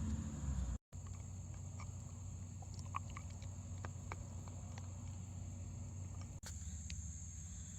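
Crickets trilling steadily at a high pitch, with a few faint, scattered clicks and taps.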